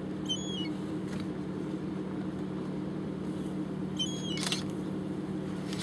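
Car engine idling with a steady low hum, heard from inside the car's cabin. Short high chirps come in twice, near the start and about four seconds in.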